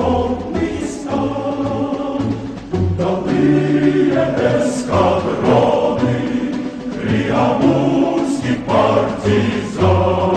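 Choral music: a choir singing a song over instrumental accompaniment, with a repeating low bass pulse.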